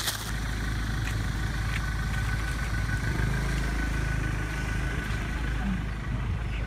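Pickup truck engine running steadily with a low rumble.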